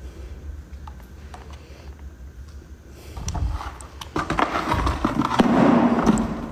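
A lampshade being handled and turned over on a tiled floor. Rustling and scraping grow from about three seconds in and are loudest near the end, with a few light clicks, over a low steady rumble.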